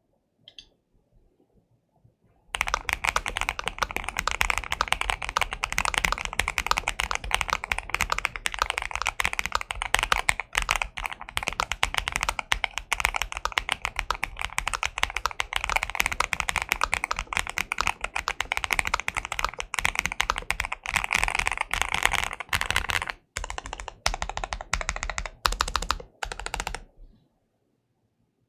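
Fast, continuous typing on a mechanical keyboard with linear switches, starting a couple of seconds in. It breaks up near the end into a few short runs of keystrokes before stopping.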